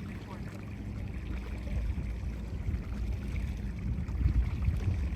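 Low, uneven rumble of wind buffeting the microphone on a boat on the water, swelling near the end.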